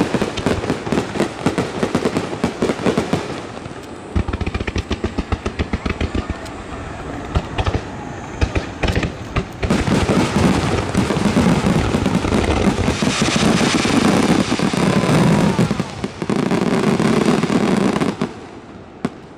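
Fireworks display: aerial shells bursting over a crackling cascade of sparks. It begins as a dense crackle, moves into a run of rapid sharp bangs, and swells into a continuous loud barrage that stops suddenly near the end.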